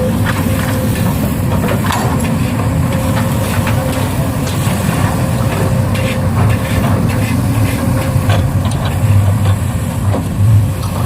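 Radio-controlled model excavator working in soil: a steady motor drone with scattered clicks and scraping as earth is dug and loaded.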